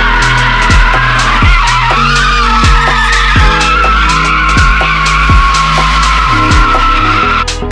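Tyres of two Mazda MX-5 Miatas squealing continuously as they drift side by side, with a wavering pitch; the squeal cuts off suddenly near the end. Background music with a steady beat plays underneath.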